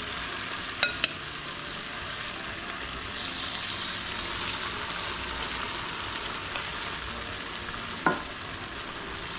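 Hot oil sizzling in a steel wok as spoonfuls of bala-bala vegetable-fritter batter deep-fry. The sizzle grows brighter about three seconds in as more batter goes into the oil. There are two quick metal clinks about a second in and a sharper one near the end.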